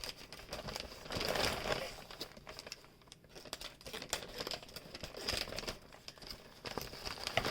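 A mailing bag crinkling and rustling as it is handled and opened, in irregular crackles, with a louder stretch about a second in.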